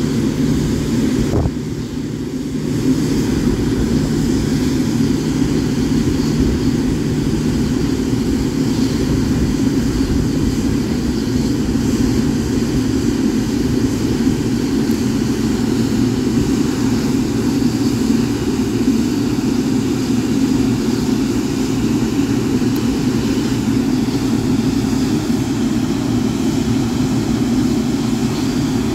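Boeing 777-9's GE9X turbofan engines running at low ground thrust: a steady, loud rumble with a faint high whine over it. It dips briefly about two seconds in.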